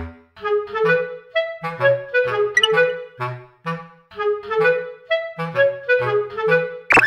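Background music: a melody of short, separate woodwind-like notes over a simple bass line, with a brief sharp sound just before the end.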